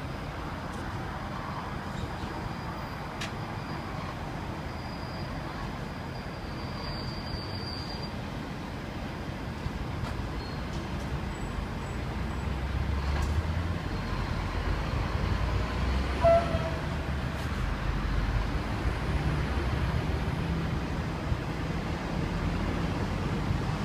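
Diesel locomotive engines running low and steady, growing louder from about halfway as a second locomotive draws near. About two-thirds through there is a short, loud toot.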